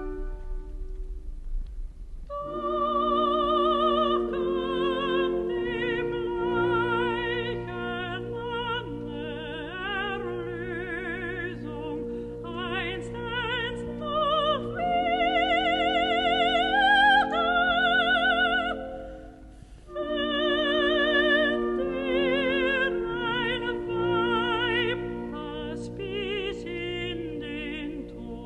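Operatic soprano singing with a wide vibrato over a symphony orchestra. The voice enters about two seconds in after held orchestral chords, and drops out briefly about two-thirds of the way through before resuming.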